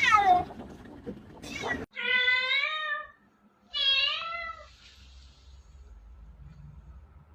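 A domestic cat meowing: a short falling meow at the start, another about a second and a half in, then two long meows around two and four seconds in, after which it goes quiet.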